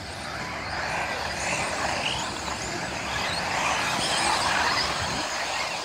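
A pack of 1/10-scale electric 4wd RC off-road buggies racing past at the start of a race: the whine of their motors and drivetrains rises and falls with the throttle. It swells as the cars come close, loudest around four seconds in, and eases near the end.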